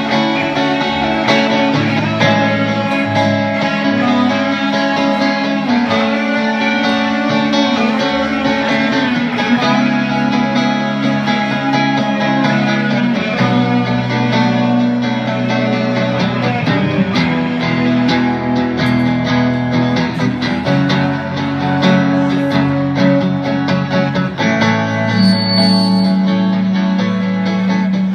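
Guitar music: an instrumental passage of sustained, ringing notes and chords that change every second or two, with a few sliding notes around the middle.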